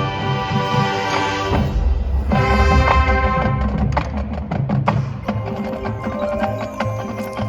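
Marching band playing: held chords, then percussion taps and struck notes coming in from about four seconds in.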